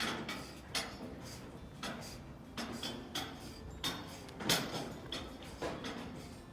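Irregular knocks and clanks, roughly one a second, the loudest about four and a half seconds in, as trailer parts are worked on and handled.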